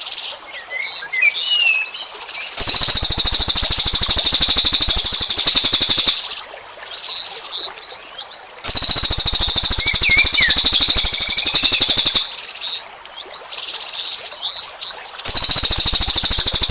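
Small songbirds calling: three loud bursts of very fast, harsh rattling trills, each a few seconds long, with quieter chirps and short sliding whistles between them. This is a 'tembakan' (rapid-fire) call used as a lure for small birds.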